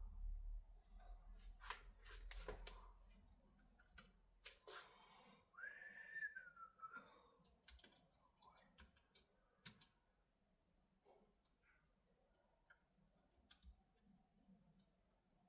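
Faint, scattered clicks and taps at an irregular pace, with one short tone about six seconds in that dips slightly in pitch.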